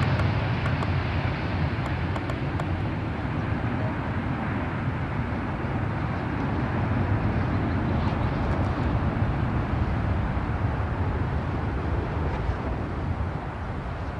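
KLM Boeing 777's GE90 jet engines rumbling as the airliner touches down and rolls out on the runway: a deep rumble with a hiss above it, swelling a little midway and fading toward the end.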